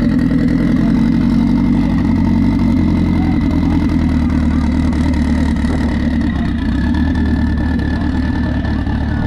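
Turbocharged Acura RSX drag car's K-series four-cylinder engine running at a steady loud idle as the car creeps toward the start line. A steady high whine sits over it and drops slightly about two-thirds of the way through.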